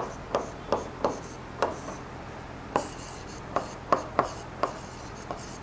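Pen nib tapping and scratching on the screen of an interactive smart-board while handwriting: a run of irregular light taps, two or three a second, with short scraping strokes between them.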